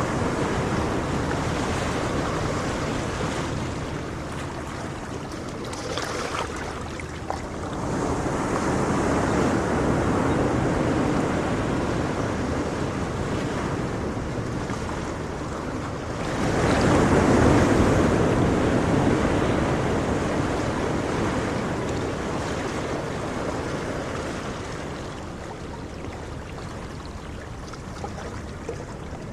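Ocean waves breaking and washing in, a steady rush of surf that swells and ebbs, with the biggest wave about 17 seconds in.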